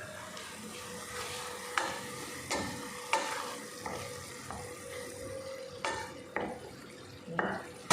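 A pot of salted water boiling on the stove, a steady hiss, with about six sharp knocks of a utensil against cookware.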